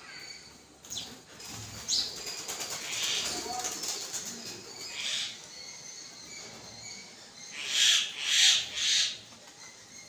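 House sparrows' wings fluttering in short flurries as they hop and fly off the feeding table, the loudest three coming close together near the end, with a few brief high chirps.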